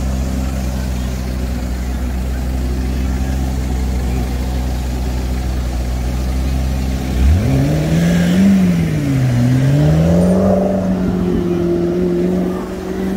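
Car engine idling with a steady low hum. About seven seconds in it revs up and pulls away: the pitch climbs, drops at a gear change, climbs again and then holds steady.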